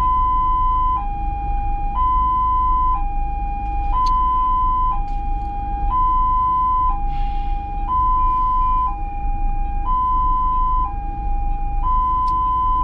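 Ambulance siren sounding a loud two-tone hi-lo wail, switching between a higher and a lower tone about once a second, over a steady low rumble.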